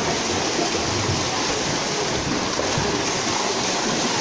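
Steady splashing of several children kicking freestyle across a swimming pool.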